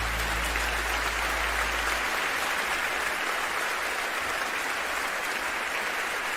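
Concert audience applauding at the end of a live song, with the music's last low note dying away about two seconds in.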